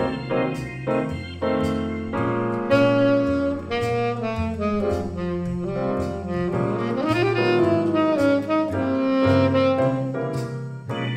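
Jazz saxophone playing a melody over grand piano chords and low bass notes. The saxophone comes in about two seconds in, slides upward around the middle, and drops out near the end, leaving the piano.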